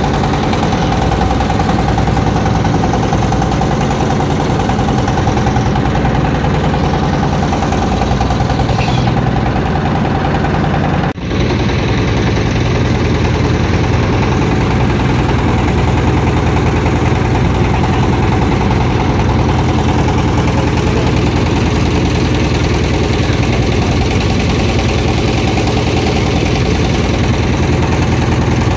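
An engine running steadily and loud, with a brief drop in level about eleven seconds in.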